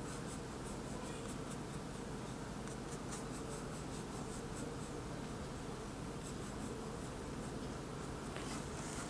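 Faint scratching of a thin paintbrush laying oil paint onto the painting in short strokes, coming in small clusters over a steady low background hum.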